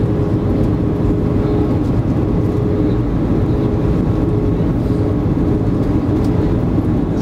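Steady cabin roar of an Airbus A320 on approach with flaps extended: engine and airflow noise heard from inside the cabin, with a steady hum under it.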